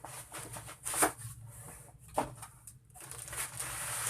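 Laptop packaging being handled: two sharp knocks, then about a second of rustling near the end as the laptop is taken out of its box.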